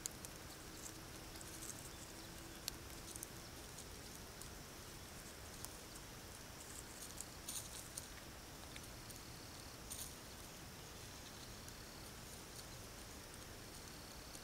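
Sandhill cranes foraging in dry leaf litter: faint, scattered ticks and rustles from bills and feet in the leaves over a steady hiss.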